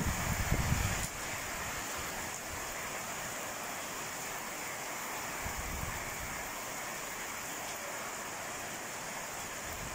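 Heavy rain falling steadily as an even hiss. A low rumble is heard at the start and stops about a second in.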